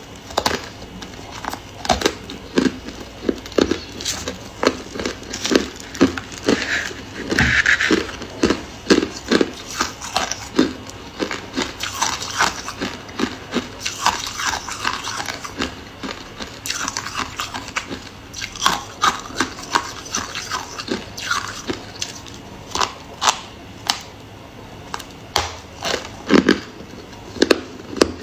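Packed freezer frost being bitten and chewed close to the microphone: a continuous run of crisp, irregular crunches, about two a second.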